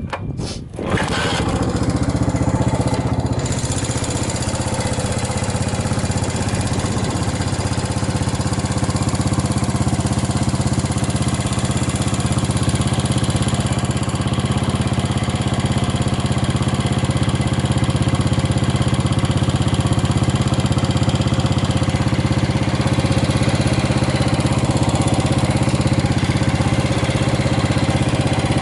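Yamaha SR400's single-cylinder four-stroke engine catching about a second in after a faltering start, then idling steadily. The builder judges it good, with no abnormal noises.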